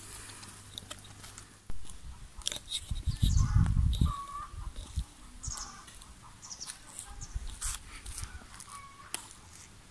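Birds calling outdoors: scattered short high chirps and a few lower, clucking calls. A brief low rumble on the microphone about three seconds in.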